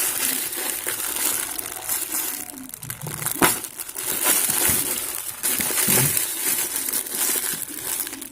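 Plastic packaging crinkling and rustling as it is handled and pulled open by hand, with a sharp crackle about three and a half seconds in.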